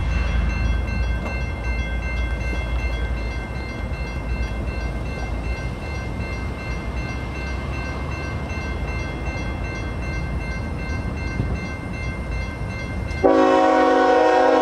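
Union Pacific freight train's diesel locomotives approaching with a low rumble while the level-crossing warning bell rings steadily. About 13 seconds in, the lead locomotive's air horn comes in suddenly, loud, and holds.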